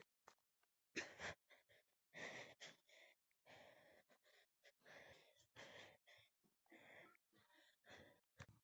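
A person breathing heavily: a string of short, breathy inhales and exhales, about one to two a second, each cutting off sharply into dead silence.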